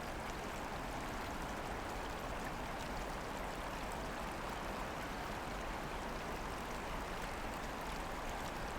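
Steady rushing of flowing water, even and unbroken, with faint ticks like droplets in it.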